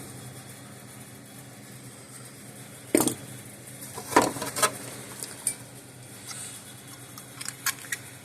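Scattered sharp clicks and taps of small parts and tools being handled on a workbench, a few single knocks followed by a quick cluster near the end, over a steady low hum.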